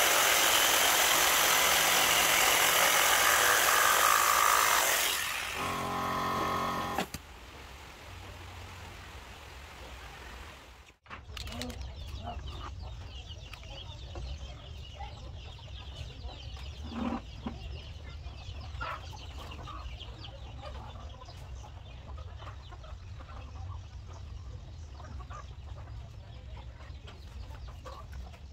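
Electric jigsaw cutting plywood, loud for about five seconds, then turning to a buzzing hum before it drops away. After that a quieter low rumble with chickens clucking now and then.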